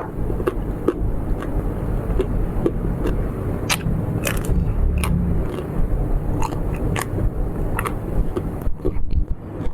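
Close-miked biting and chewing of food, with sharp crisp clicks and crackles several times a second.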